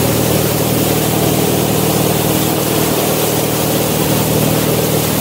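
Motorboat's engine running steadily at towing speed, over the continuous rush of churning wake water.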